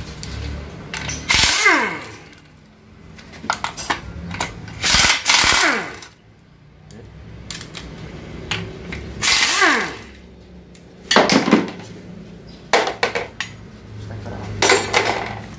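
A power impact wrench runs in five short bursts, each under a second, undoing the bracket bolts on an automatic transmission case. After several of the bursts its pitch falls away as it spins down.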